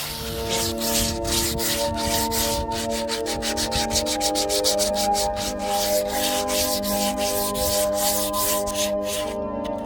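Sandpaper rubbing on wood in quick, even back-and-forth strokes, over background music.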